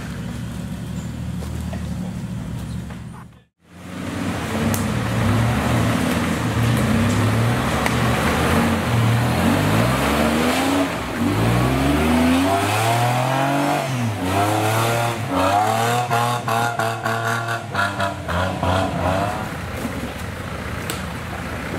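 Off-road 4x4 engine running steadily, then, after a brief cut, revving hard over and over, its pitch sweeping up and down. A run of sharp clicks and knocks comes in with the later revs.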